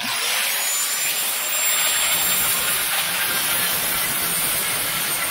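Electric angle grinder switching on and spinning up, then grinding down flux-core spot welds on a steel lower quarter-panel patch, with a steady high whine.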